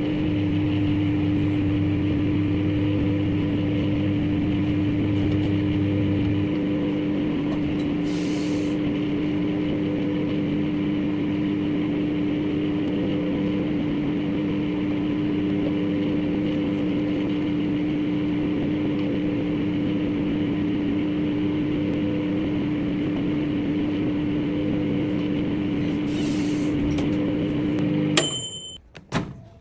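Microwave oven running with a steady hum, heating a cup for tea. Near the end it cuts off, gives a short high beep, and then there are a couple of sharp clicks.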